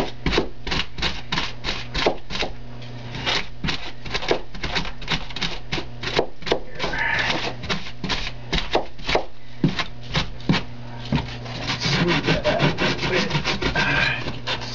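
Pink extruded polystyrene foam being carved and roughened by hand, a rapid run of short scraping strokes at about four a second, with a steady low hum beneath.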